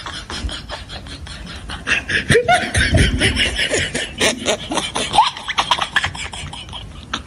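Siberian husky puppy licking and mouthing a glass door: rapid wet squeaking and rubbing of tongue and teeth on the glass, louder from about two seconds in, with several short pitched squeaks.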